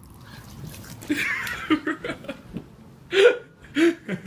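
Water poured from a glass splashes onto a sleeping person's head, then two short, sharp vocal cries follow in quick succession near the end.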